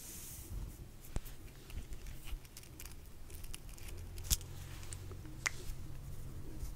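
Close-miked ASMR handling sounds of fingers working a small black feather: a brief soft swish at the start, then quiet rustling with scattered sharp little clicks, the loudest about four seconds in.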